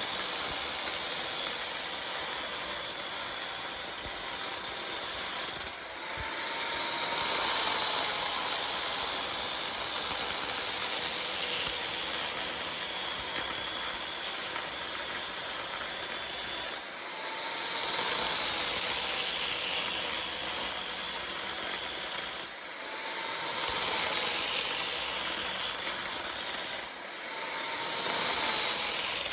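A motorised power tool running with a steady hiss. It breaks off four times for a moment, and each time it picks up again with a faint rising whine.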